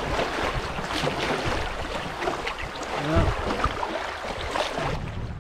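River water rushing and splashing around a canoe's hull through a shallow grade-one rapid, with the splash of wooden paddle strokes and a low thump about three seconds in.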